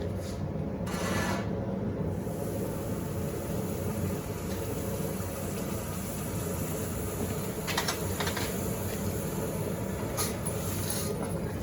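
Steady roar and hum of forge-shop equipment running, with a few light metallic clicks about two-thirds of the way through and again near the end.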